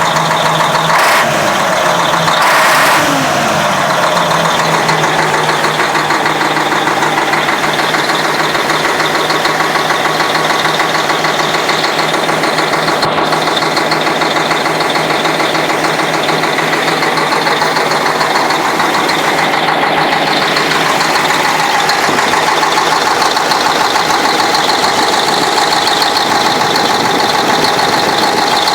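YaMZ-6581.10 diesel engine running steadily with a knock whose cause is unclear. Between two and three seconds in there is a brief louder burst, after which the tone drops back.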